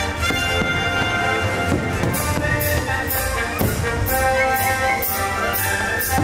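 Orchestral show music with brass. About two seconds in, a steady beat of sharp hits comes in at about two a second.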